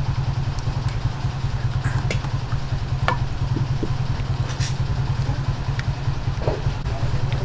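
A steady low mechanical hum under a few short, sharp clinks and scrapes of a utensil as liver spread is scooped from its can into the pot of beef and marinade.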